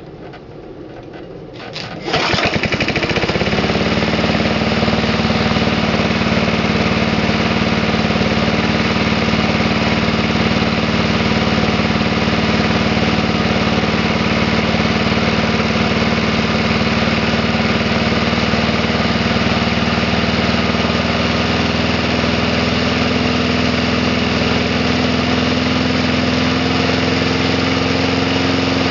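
1970 Briggs & Stratton 92902 single-cylinder vertical-shaft engine on a push lawn mower being started, catching about two seconds in and then running steadily at an even speed.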